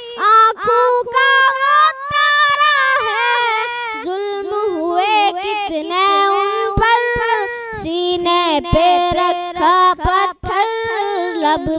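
A young boy singing a naat solo, the voice alone with long held notes and ornamented turns. The held pitch steps down about four seconds in and again about eight seconds in.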